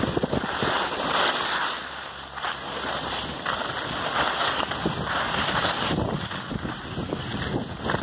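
Wind rushing over the microphone during a downhill ski run, with skis scraping over hard-packed snow; the hiss swells and fades from turn to turn.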